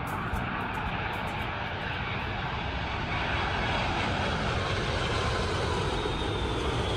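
Four-engined Boeing 747-400 airliner on low final approach, gear down, passing close by: a steady jet engine roar that grows a little louder about three seconds in.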